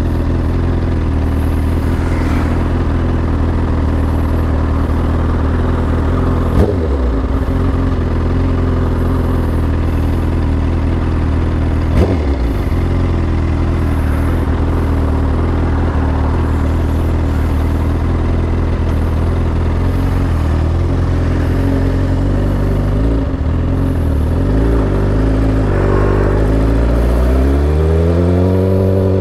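Suzuki GSX-R1000 inline-four motorcycle engine running steadily, with two short clicks several seconds apart and the revs climbing near the end.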